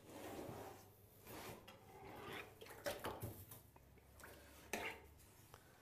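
Faint strokes of a filleting knife cutting and scraping the skin off a rig shark fillet on a cutting board, with a few light knocks of the knife or fish against the board.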